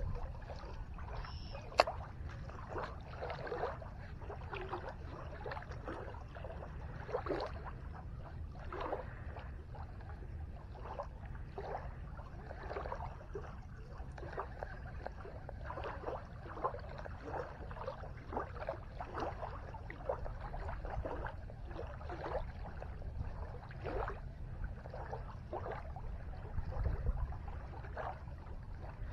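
Small waves lapping and splashing irregularly at the lake shore, over a steady low wind rumble on the microphone; a single sharp click about two seconds in.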